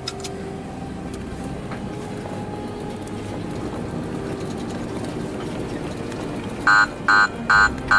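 Off-road vehicle running with steady engine and road noise. Near the end, five short, loud beeps come in quick succession, about half a second apart.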